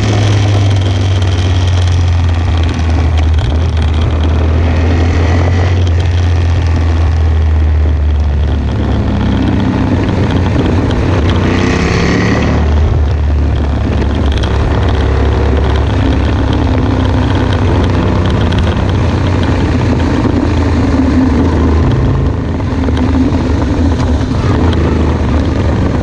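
Yamaha XSR700's 689 cc parallel-twin running loud through an aftermarket carbon-sleeved slip-on exhaust while riding. The exhaust note rises and falls with the throttle, changing about a third of the way in and again near the middle.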